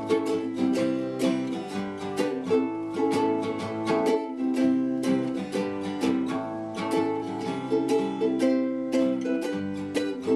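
Acoustic stringed instrument strummed in a steady rhythm of chords, an instrumental lead-in to a song.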